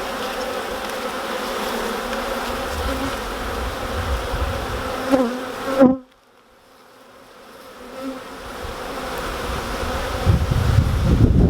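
Honeybees buzzing around an open hive, a steady hum with a couple of louder buzzes as single bees pass close. About halfway through the sound cuts out suddenly and fades back in, and near the end wind rumbles on the microphone.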